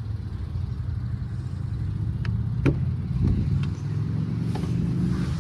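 2023 Nissan Pathfinder's V6 engine idling steadily, with a few light clicks over it, the sharpest about halfway through.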